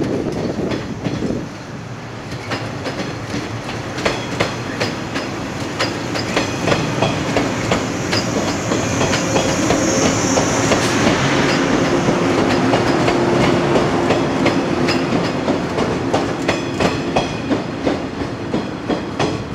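Yellow JR West 115-series electric multiple unit running past, its wheels clicking in quick rhythmic groups over the rail joints above a steady motor and running hum. It gets louder as the cars go by, loudest around the middle and latter part, then eases off near the end.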